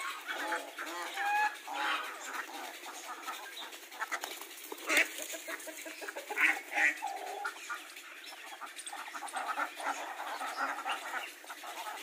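Flock of domestic ducks quacking, many short calls overlapping, with a few louder calls around the middle.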